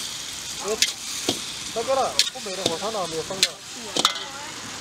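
Char koay teow frying in a wok over a charcoal stove: a steady sizzle, with the metal spatula clanking and scraping against the wok several times as the noodles are tossed.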